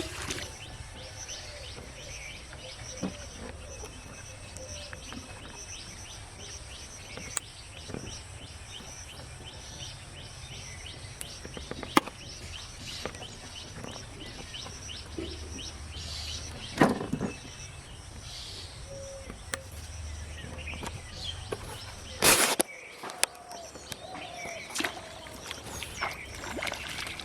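Rural outdoor ambience with birds chirping, a few sharp clicks, and one louder burst of noise about 22 seconds in.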